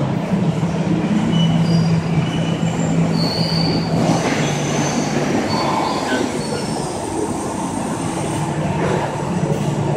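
Rubber tire-tread extrusion line running: steady loud machinery noise with a low hum, and short high-pitched squeals now and then.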